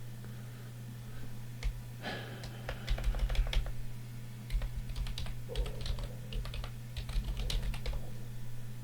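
Typing on a computer keyboard: a run of quick key clicks starting about two seconds in, over a steady low hum. It is the sound of entering login details to log back in to the desktop.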